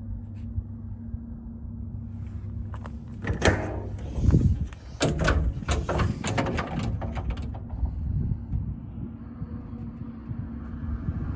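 Truck doors being handled: a cluster of latch clicks and metal clunks over a few seconds in the middle, over a steady low hum.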